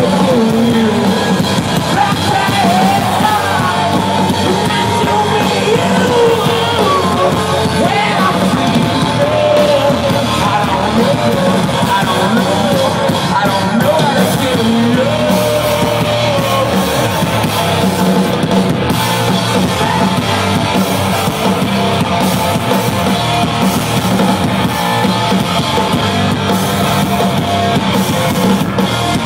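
A live hard rock band playing loud: electric guitars, bass and drum kit, with a singer's yelled and sung vocals over them, most prominent in the first half.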